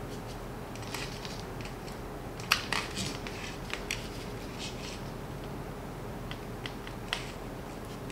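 Scattered small clicks and rustles of hands twisting and handling stranded wire leads together, the sharpest click a little over two seconds in.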